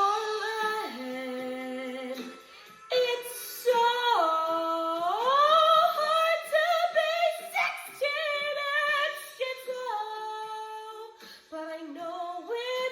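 A young woman singing a slow melody in one voice, holding long notes with smooth glides between them; early on her voice sounds as if something is caught in her throat.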